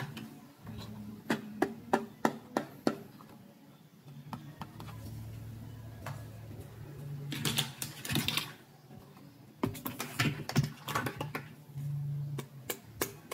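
Small hard-plastic toy doctor-set pieces clicking and tapping as they are handled and set down: irregular runs of sharp clicks, with a denser scraping clatter in the middle.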